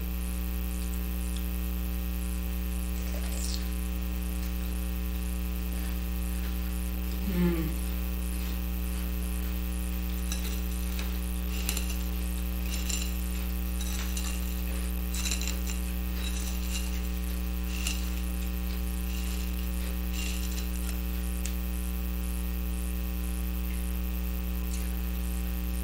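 Steady electrical mains hum with its overtones in the recording. Faint small crackles and ticks come in the middle stretch, and there is a brief murmur of voice about seven seconds in.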